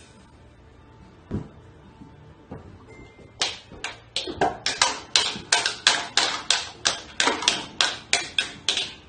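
A toddler beating a toy drum kit with drumsticks: a single thump about a second and a half in, then from about three and a half seconds a quick, uneven run of sharp hits, roughly three a second.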